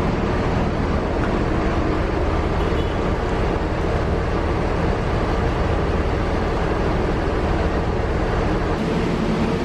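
Large vehicle engine, likely a bus's diesel, running steadily with a low hum under constant loud noise.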